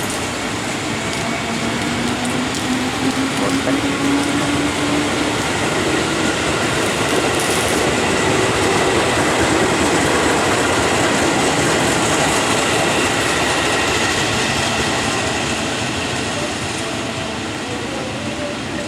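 A train passing close by on the track, its running noise swelling to a peak about halfway through and easing off toward the end. A faint rising whine comes in the first few seconds, and a thin steady high squeal runs through the middle.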